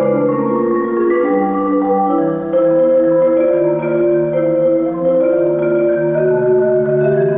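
Solo concert marimba played with mallets: a continuous flow of sustained, overlapping chords in the low and middle register, changing every half-second to second.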